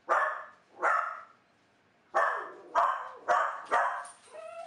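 A dog barking: two barks, a pause of about a second, then four quicker barks, and a short rising whine near the end.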